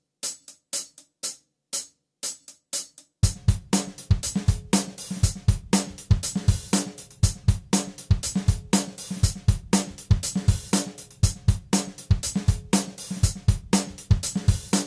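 Intro music drum beat: a hi-hat ticking alone for about three seconds, then the full drum kit with kick, snare and bass comes in, keeping a steady rhythm.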